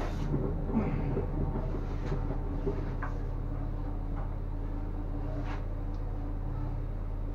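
High-pressure drain jetter running with a steady, even mechanical drone, with a few light knocks over it.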